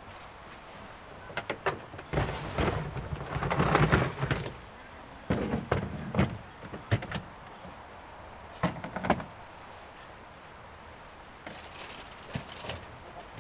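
Hard plastic storage boxes being lifted, shifted and opened on a pickup's tailgate: clusters of knocks, scrapes and clatter over the first several seconds, two sharp clacks about nine seconds in, and a few lighter clicks near the end.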